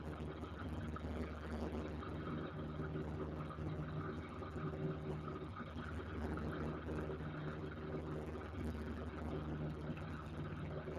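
Light aircraft's piston engine and propeller droning steadily in cruise, heard inside the cabin.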